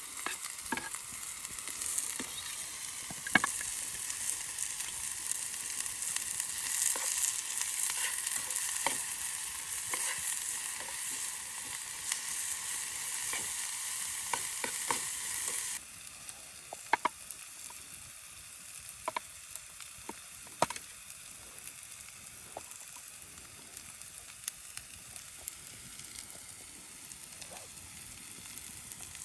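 Diced onions sizzling as they fry in a pan over a small wood-burning camp stove, with scattered clicks and taps of a spoon stirring them. The sizzle drops suddenly to a quieter level a little past halfway.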